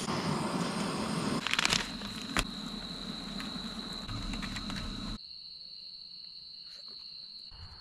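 Canister backpacking stove burner hissing steadily, with a few rustles and clicks, joined about a second and a half in by a steady high cricket trill. The stove hiss stops about five seconds in, leaving the crickets trilling alone.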